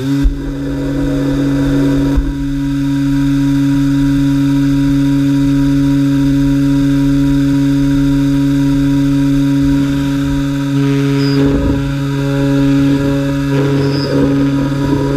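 Komo CNC router spindle motor running at a steady speed, a constant hum with a whine above it, having reached speed right at the start. A couple of short, rougher passages come in after the middle.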